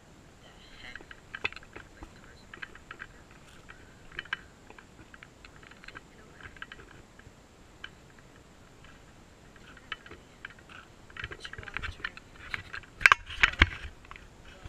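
Scattered crunches, taps and rustles of a handheld action camera being handled and moved about over dry dirt, busier after about ten seconds, with a few louder knocks against the camera near the end.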